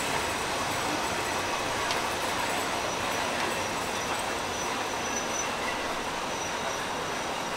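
Passenger train rolling slowly into a station: a steady rumble of wheels on rail, with a faint thin wheel squeal about five seconds in.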